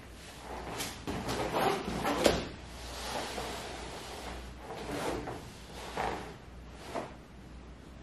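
Clothing rustling and soft knocks as two bodies shift and press on a floor mat during hands-on massage, with a sharper knock about two seconds in and a few smaller ones later. A low steady hum runs underneath.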